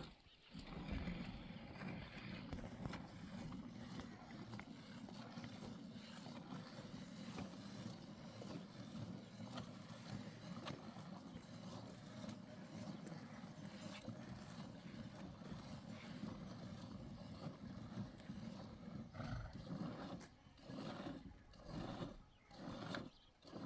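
A cow being milked by hand, with milk streaming into a pail. Near the end the squirts come as a distinct rhythm, about two a second.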